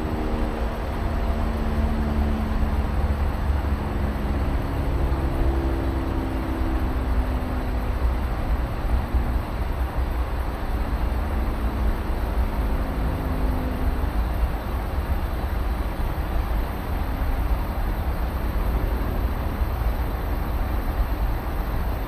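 Vaillant aroTHERM Plus 7 kW air-source heat pump outdoor unit running up close: a steady whirring noise with a deep low rumble, and faint humming tones that fade over the first several seconds and return briefly later.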